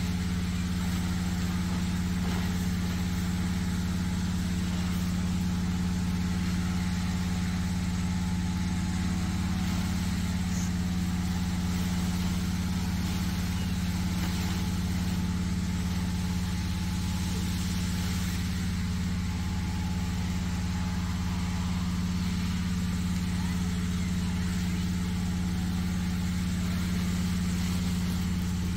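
Hot air balloon inflator fan's gas engine running steadily at constant speed, blowing cold air into the balloon envelope during cold inflation.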